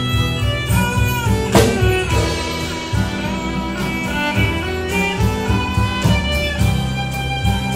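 Live Irish folk band playing a tune: fiddle carrying the melody over strummed acoustic guitar, double bass and drum kit. There is a crash from the drums about a second and a half in.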